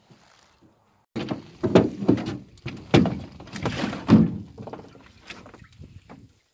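Irregular knocks, thuds and scraping of fishing gear against a small metal boat as a gill net is paid out over the side. They start abruptly about a second in, the heaviest in the middle, then taper to lighter knocks.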